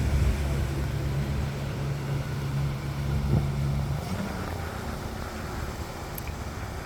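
A motor engine running with a steady low hum, fading away about four seconds in.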